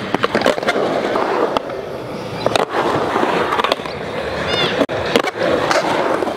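Skateboards rolling on a concrete bowl, the wheels rumbling steadily, with several sharp clacks of boards striking the concrete and coping.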